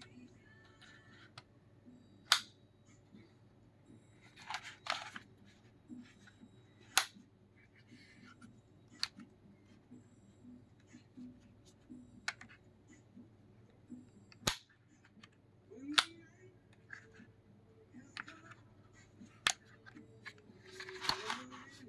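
Isolated sharp clicks and taps, one every couple of seconds, with short clatters of several clicks about five seconds in and near the end: a plastic computer keyboard being handled and its parts clicked.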